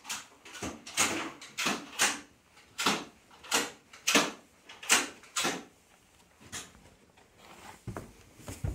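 Footsteps on carpet: a quick, irregular series of soft scuffs, about two a second, fading after five seconds or so, with a few low thumps near the end where the carpeted stairs begin.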